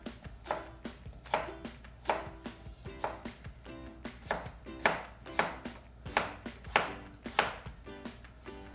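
Chef's knife cutting a raw potato into French-fry sticks (bâtonnet), each slice ending in a knock on a plastic cutting board. About a dozen cuts come in a steady rhythm, roughly one every two-thirds of a second.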